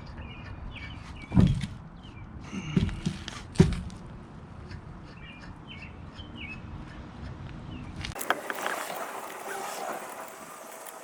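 Small birds chirping in short repeated calls over a low rumble, with three dull low thumps in the first four seconds, the loudest things heard. About eight seconds in, the low rumble stops and a hiss with scattered clicks takes over.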